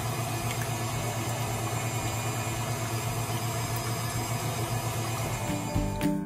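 KitchenAid tilt-head stand mixer running steadily at speed 4, its wire whip beating egg whites into a meringue. Music takes over at the very end.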